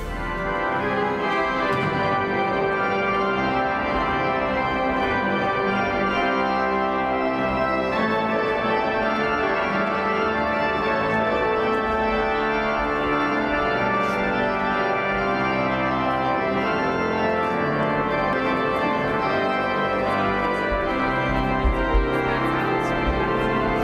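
Church pipe organ playing, with many notes held together in sustained chords. A couple of brief low bumps come near the end.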